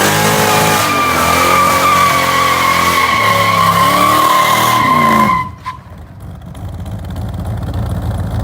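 A car doing a burnout: the engine revving hard while the tyres squeal, stopping abruptly about five seconds in, after which the engine runs on low and steady.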